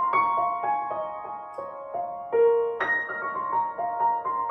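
Old Gaveau French upright piano played in its high register: short descending runs of single notes, each struck and left to ring, with a new run starting from a higher note just under three seconds in.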